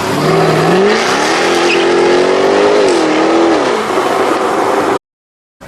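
Jaguar F-Type R's supercharged V8 revving hard, the engine note climbing steeply over the first second and a half, holding high, then dropping away at about three and a half seconds. The sound cuts off abruptly about five seconds in.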